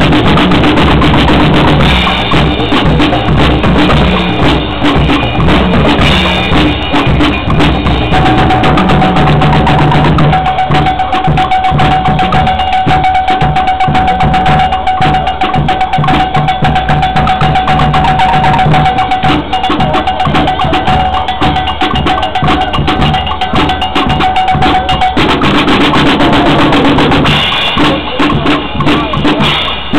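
Marching-band drum section playing a steady beat on snare, bass drum and other hand percussion. A single steady high tone is held through much of the middle.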